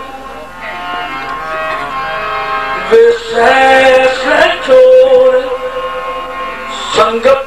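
Qawwali: a man singing into a microphone over sustained, reedy held notes, his voice sliding in pitch in the middle, with a few sharp strokes near the end.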